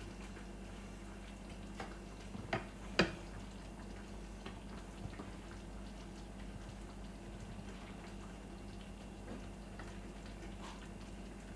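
Fish and vegetable stir fry sizzling quietly in a full frying pan over a low steady hum, with a few sharp clicks, the loudest about three seconds in.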